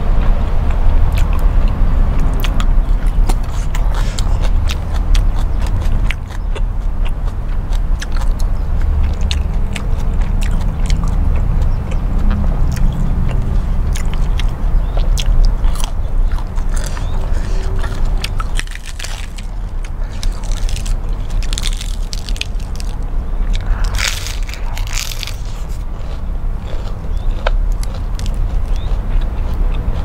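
Close-miked chewing of a mouthful of beef noodle soup, a steady run of wet smacks and clicks from the mouth. A few louder crunches come about two-thirds of the way through.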